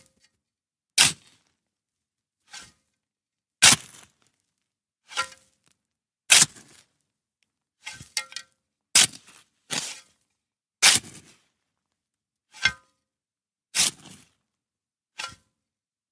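Metal shovel digging into sand: a series of about a dozen short, gritty scoops, roughly one every second or so, with silence between. Some strokes carry a faint metallic ring from the blade.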